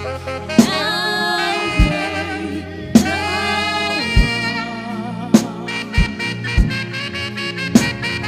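Live worship band music: a held, wavering lead melody over bass and drums, with a kick drum hitting about once a second.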